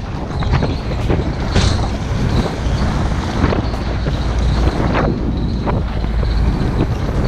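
A steady low rumble, with irregular crunching footsteps on a gravelly shore.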